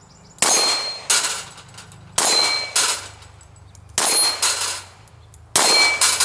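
Pistol fired at a rack of steel plates: about six sharp shots at uneven intervals, most followed by the ringing clang of a plate being hit.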